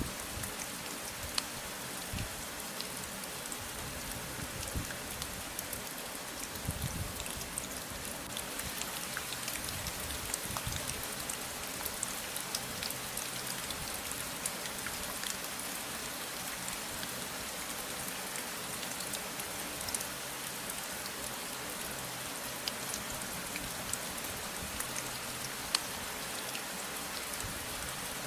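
Steady rain falling, a dense even hiss with many small drop ticks and an occasional soft low thud.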